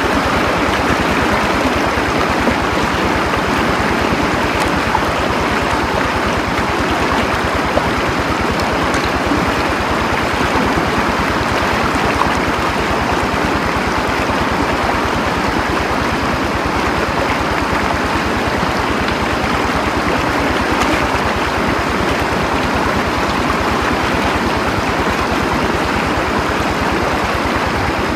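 Stream water flowing steadily, an even rushing noise.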